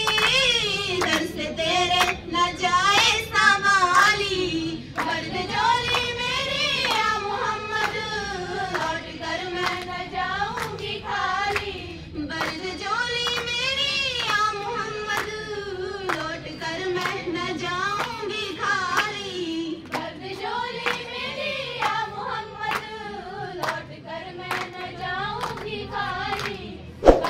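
Girls singing a qawwali with a lead voice on a microphone, the melody gliding and ornamented, over steady rhythmic handclapping from the group. A single sharp knock sounds near the end.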